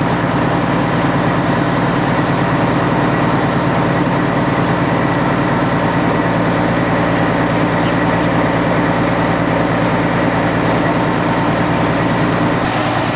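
Engine running steadily at idle, a constant low hum with several steady tones.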